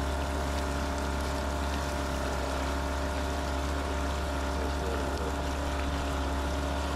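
Boat motor running steadily at one even pitch: a constant low drone with several steady tones above it.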